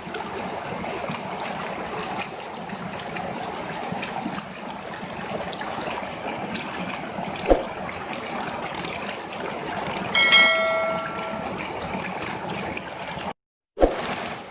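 Steady rushing, stream-like water noise, with a sharp click about halfway through and a single bell-like chime struck about two-thirds of the way in that rings and fades over a second or so; everything cuts off abruptly just before the end.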